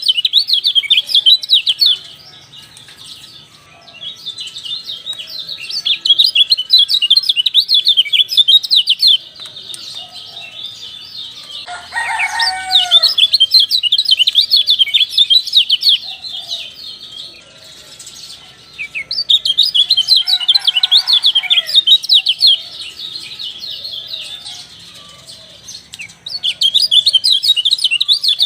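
Kecial, a small white-eye songbird, singing in bouts of rapid, high, chattering chirps a few seconds long with short pauses between. Twice, at about 12 and 20 seconds in, a lower, swooping call joins the chatter.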